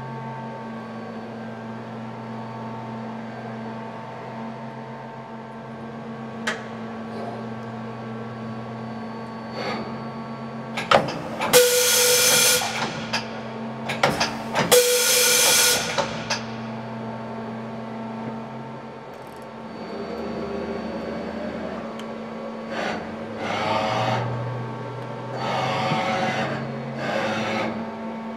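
TRAUB CSK300 vertical CNC machining center running with a steady hum of several tones. Two loud rushing bursts of a couple of seconds each come near the middle. Several shorter pitched whirring bursts follow near the end.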